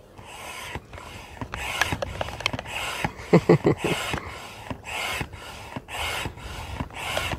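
Hand-operated barrel air pump inflating an inflatable kayak, worked in steady strokes: a rasping rush of air with each stroke, about one a second.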